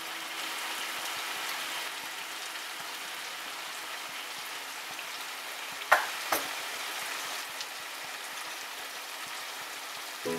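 Duck pieces frying in a pan, a steady sizzling hiss, with two sharp clicks a little past halfway through.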